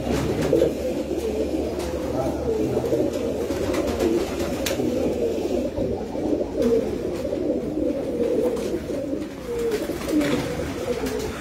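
A loft full of domestic pigeons cooing together, a dense and unbroken chorus of overlapping coos.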